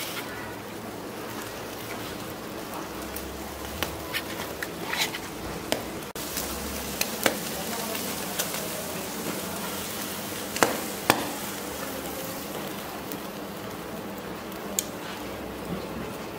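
Sturgeon kebabs on metal skewers sizzling over hot charcoal, a steady hiss with scattered sharp pops and crackles. Two louder pops come close together past the middle.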